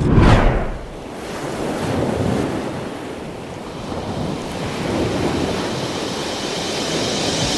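Ocean surf: waves breaking and washing in, with a loud surge at the start and softer swells a couple of seconds apart, plus wind buffeting the microphone.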